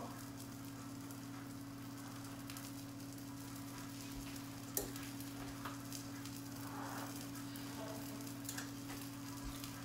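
Hamburger patty sizzling in a small frying pan on the stove, a steady hiss of frying over a low constant hum, with one sharp click about five seconds in.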